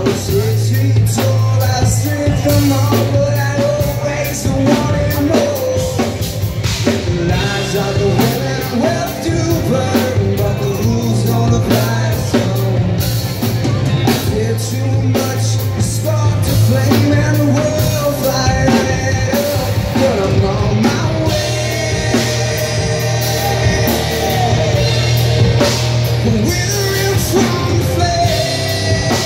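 Live rock band playing a song: electric guitars, bass guitar and a drum kit, with a lead singer's vocal over them, heard loud from within the audience.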